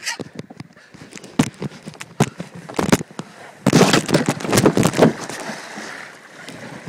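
Kayak hull knocking and scraping as it slides off the bank, then a loud splashing rush about four seconds in as it drops into the river, settling into a steady sound of moving water.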